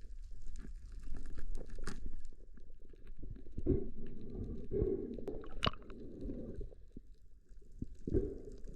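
Muffled underwater sound through a waterproof camera housing: low rumbling and gurgling, with scattered short clicks.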